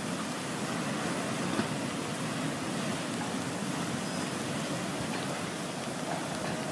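Flash-flood water rushing steadily, a continuous even roar of churning muddy water.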